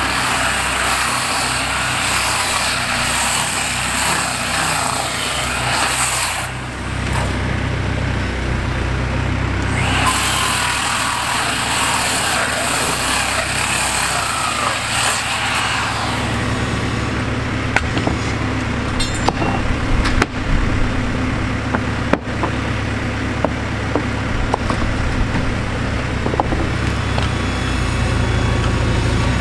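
Backhoe engine running steadily under load while the wooden deck creaks and grinds as it is pushed and pulled. Sharp knocks and cracks of the timber come in the second half.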